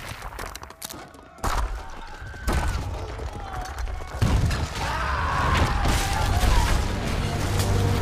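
Film sound effects of a giant sea monster's body turning to stone: two sudden heavy cracking hits, the first about one and a half seconds in, then a deep, continuing low rumble from about four seconds in, with some wavering cries over it.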